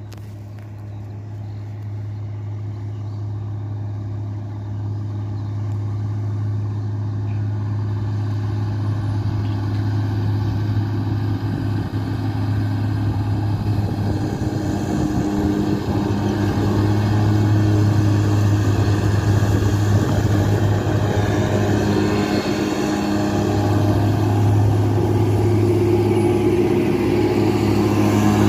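Fendt 409 Farmer Vario tractor's diesel engine running steadily under load while mowing with a Pöttinger disc mower, growing steadily louder as the tractor approaches.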